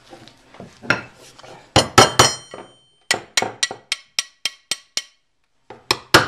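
Sharp metallic taps of steel on steel as a quarter-inch steel pin is worked into the drilled holes of rebar tong halves. A few hard strikes with a brief ring come about two seconds in, then a run of lighter, evenly spaced taps about three to four a second. After a short pause the taps start again near the end.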